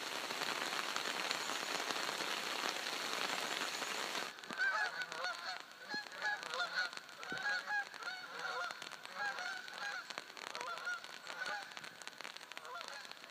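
Steady rain falling for about four seconds. After a sudden cut, birds honk over and over in short, quick calls.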